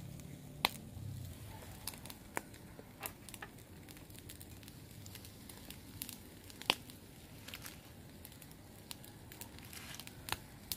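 Scattered sharp clicks and light crackling from a small charcoal grill as metal tongs move chicken feet on its wire rack; the loudest click comes about two-thirds of the way through.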